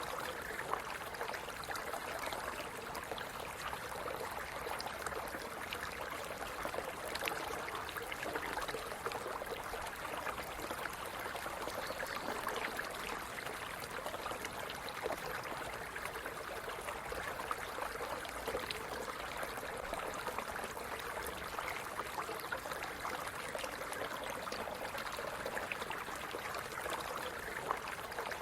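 A stream running steadily over rocks, with a constant trickling and splashing flow and many small, sharp splashes throughout.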